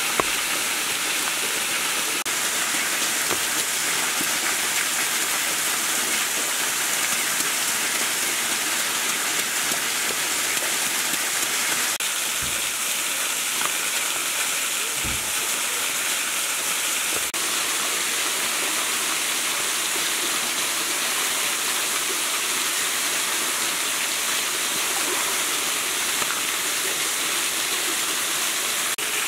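Steady rush of a small waterfall splashing into a rock pool, with a few soft knocks in the middle.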